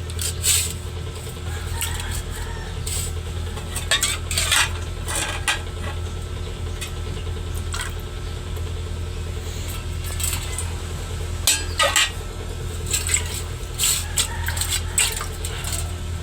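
Metal pots, ladles and spoons clinking and clattering at irregular intervals as a toddler bangs and stirs them, with a cluster of clinks about four seconds in and another near twelve seconds. A steady low hum runs underneath.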